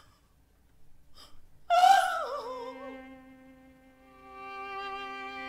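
A woman's anguished cry from the stage, breaking out suddenly and loudly about two seconds in after a couple of sharp breaths, wavering and falling in pitch as it fades. Held string chords then swell in beneath it.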